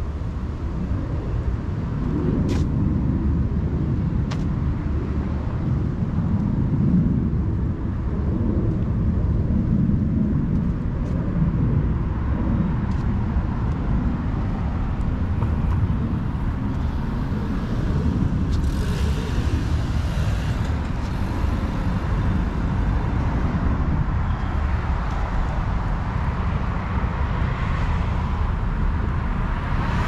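Street traffic: a steady rumble of cars and tyres on the road beside the sidewalk, with a vehicle passing more loudly a little past halfway through.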